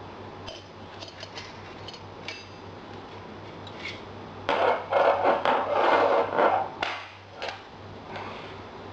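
Katana parts being handled: a few light clicks, then about three seconds of scraping and clattering of metal and wood, starting about halfway through.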